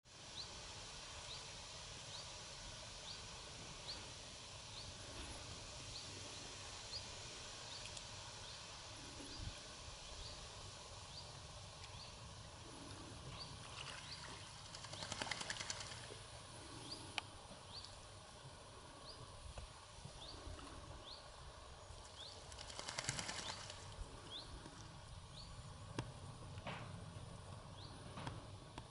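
Faint outdoor ambience with a bird giving a short, high, rising chirp about once a second. Two rasping bursts of about a second and a half break in, one near the middle and one about two-thirds of the way through.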